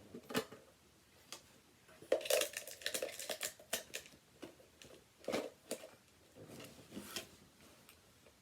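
A metal Pokémon collector tin and its contents being handled: scattered clinks and knocks with rustling, busiest a couple of seconds in, then a few separate knocks.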